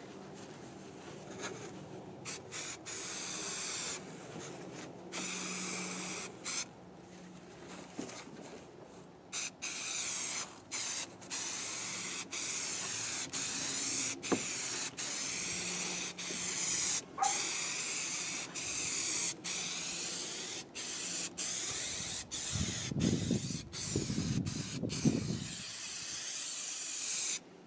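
Aerosol spray adhesive hissing from a can in many separate sprays, some short and some a few seconds long, each stopping and starting abruptly, as it is sprayed onto the truck bed to stick down carpet.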